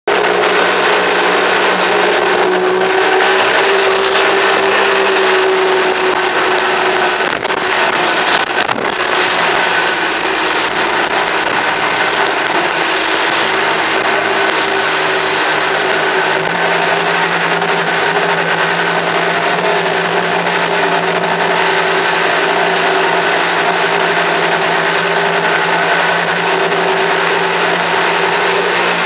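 Outboard motor running steadily at high speed as a boat travels across open sea, mixed with the rush of wind and churning wake water.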